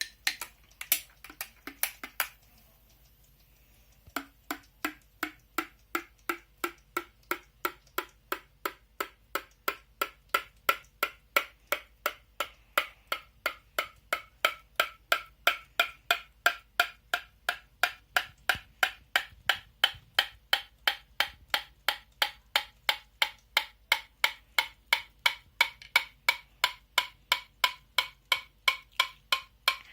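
Teaspoon tapping a cup of hot coffee: a few uneven taps, a short pause, then steady tapping at about three taps a second. The ringing pitch of each tap slowly climbs, the hot chocolate effect, as the bubbles stirred into the hot liquid clear.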